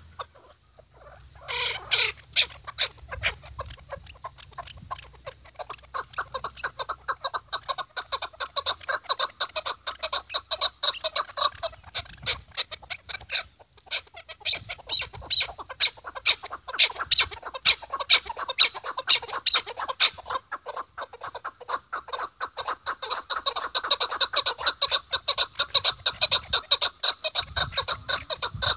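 Chukar partridge calling: a long, rapid series of clucking 'chuk' notes, with a short break about halfway through.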